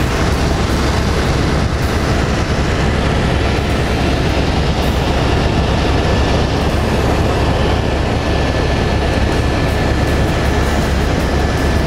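Steady, loud rumble of an aircraft's engine and rushing air, heard from on board in flight.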